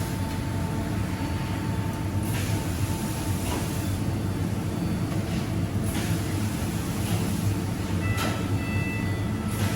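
Oatcake production-line machinery running with a steady low rumble, with a few light knocks scattered through it and faint thin tones near the end.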